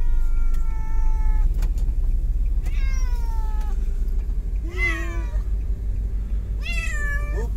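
Domestic cat meowing repeatedly: four long meows, each falling in pitch, about two seconds apart, over a steady low rumble.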